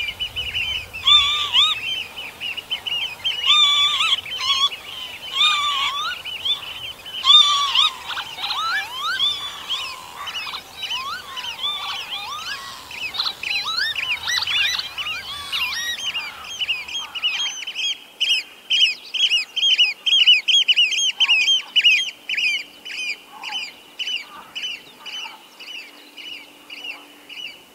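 Northern lapwings and Eurasian oystercatchers calling over one another, many overlapping rising and falling calls. Past the halfway point a fast, even run of shrill piping notes, about three a second, takes over.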